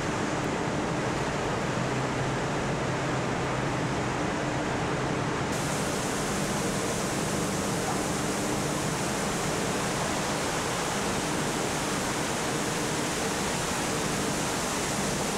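Steady rushing and splashing of liquid as a car body shell is dipped into and drawn out of a factory dip tank, with liquid pouring off it, over a low machinery hum. The rush turns brighter and hissier about five seconds in.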